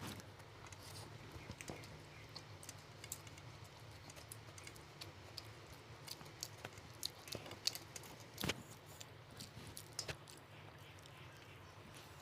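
Eating sounds: scattered wet clicks and smacks of chewing mutton biryani, with a sharper click about eight and a half seconds in, over a faint low hum.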